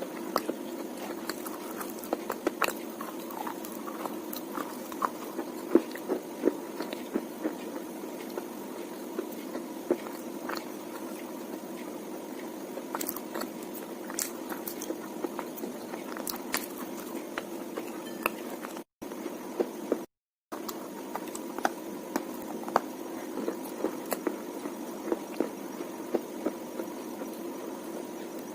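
A person biting and chewing wet slate, with irregular crisp crunches over a steady low hum. The sound drops out briefly twice a little past the middle.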